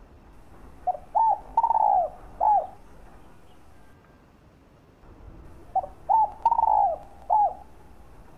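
Spotted dove cooing: two phrases a few seconds apart, each of four notes, a short first note then three louder ones with the third held longest, each note dropping in pitch at its end.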